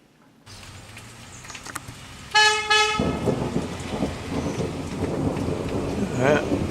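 Vehicle horn beeping twice in quick succession, followed by a steady rushing noise.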